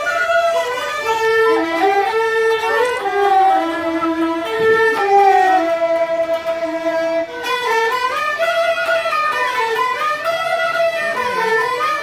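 Live traditional Chinese folk ensemble playing a melody: bowed two-string fiddles lead with sliding notes, with a plucked round-bodied lute and a bamboo pipe.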